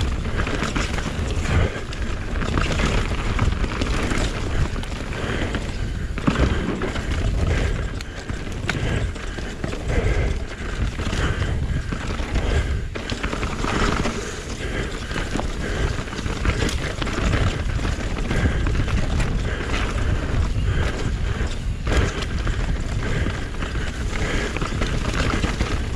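Enduro mountain bike riding fast down a rough trail: wind buffeting the action camera's microphone and tyres rumbling over the ground, with frequent short knocks and rattles from the bike hitting bumps.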